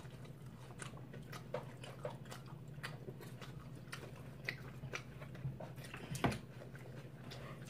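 Close-up eating sounds of salad: chewing with small crunches and scattered soft clicks of forks in the bowls, one click a little louder about six seconds in.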